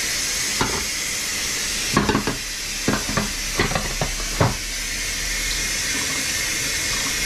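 Raw chicken and a glass baking dish being handled: several short knocks and clatters of the dish and bowl over a steady background hiss.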